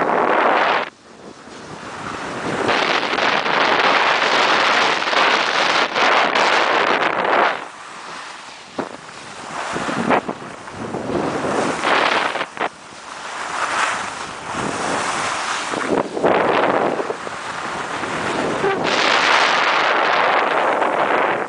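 Wind rushing over the microphone of a camera riding downhill on snow, mixed with the hiss of snow under the rider's edges. It swells and fades every few seconds as speed and turns change, with a sharp drop about a second in.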